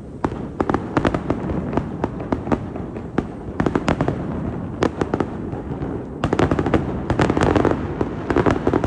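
Fireworks going off in rapid, irregular bangs and crackles, growing denser about six seconds in.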